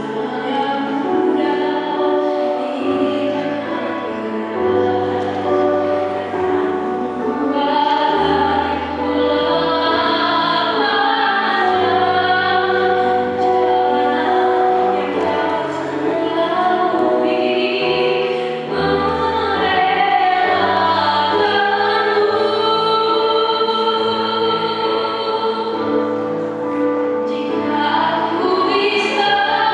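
A choir of junior-high students singing a pop song in several-part harmony, with sustained low notes beneath.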